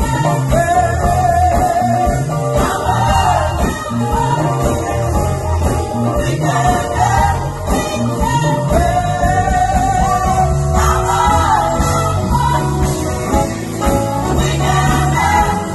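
Gospel choir singing long held notes over live band accompaniment with a steady bass line.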